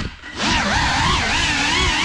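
Cinewhoop drone's brushless motors whining, the pitch rising and falling with the throttle. The sound drops away for a moment at the start as the throttle is cut, then comes back and settles to a steady pitch near the end.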